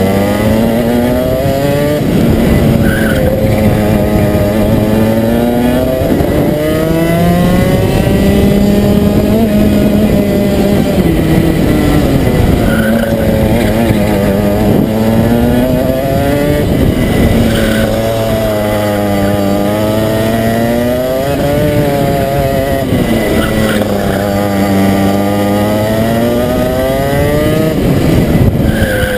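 Rotax 125 cc two-stroke kart engine heard onboard at racing speed, its pitch climbing on the straights and falling away into the corners several times over.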